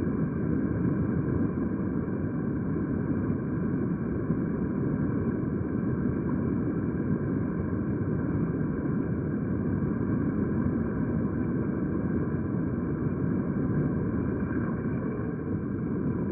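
Stream water heard through a submerged camera: a steady, muffled low rushing with no clear high sounds.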